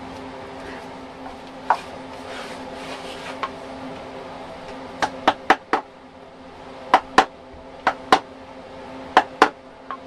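Sharp knocks of a mallet striking a carving tool into a wooden carving: one knock early, then about ten from halfway on, mostly in quick pairs. A steady machine hum runs underneath.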